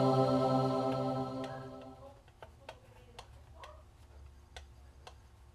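Background music with long held tones fades out over the first two seconds. Faint, irregular small clicks follow, about two a second.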